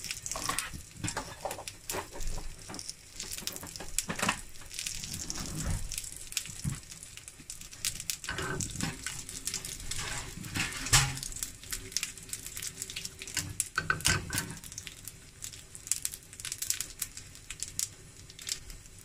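Mustard seeds and dried red chillies frying in hot groundnut oil in a small pan: quick, irregular pops and crackles over a steady sizzle as the mustard seeds splutter. That spluttering is the sign that the tempering is done.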